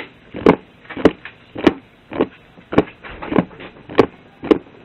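Sticky icy slime being worked by hand, making a sharp click or pop about twice a second in an even rhythm.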